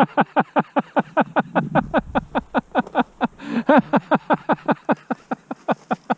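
A man laughing hard and without stopping, a rapid run of short 'ha' pulses, about five or six a second.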